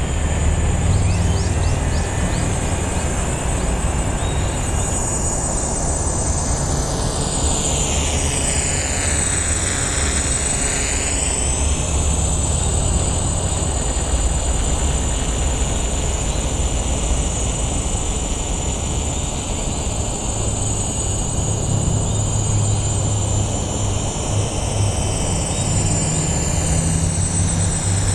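GAUI 330X-S quadcopter's electric motors and propellers whirring steadily in flight. Around ten seconds in, the high whine sweeps down and back up.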